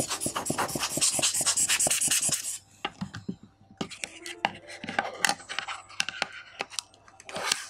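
Hands handling a camera lens and plastic packaging on a tabletop. First comes a couple of seconds of rapid scratchy clicking, then scattered light clicks and taps, with a louder rustle near the end.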